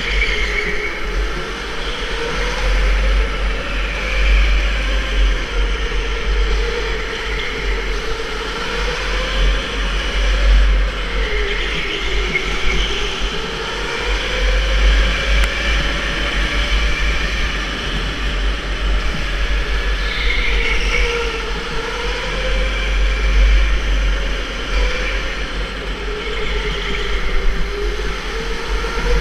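Electric go-kart motor whining, its pitch rising and falling every few seconds as the kart speeds up and slows through the corners, over a heavy low rumble of wind and track noise on the microphone.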